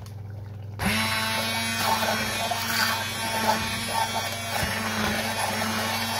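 Hand-held immersion (stick) blender switched on about a second in and running steadily in a saucepan of hot tomato sauce, its motor giving a steady buzz as the blade purées the chunky sauce smooth.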